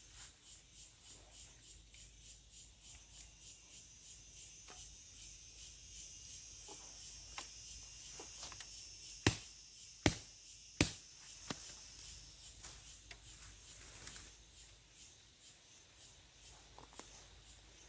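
Insects chirping steadily, a high hiss pulsing a few times a second, with a few sharp snaps about halfway through, the three loudest less than a second apart.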